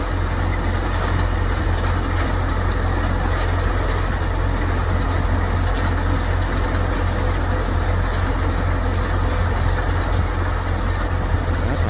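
Kubota DC105X rice combine harvester running steadily: its diesel engine and threshing machinery make a loud, even noise with a strong low hum.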